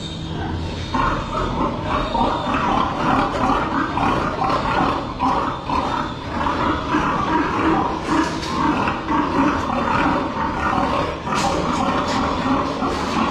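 Many pigs in crates calling at once, a dense continuous chorus that grows louder about a second in.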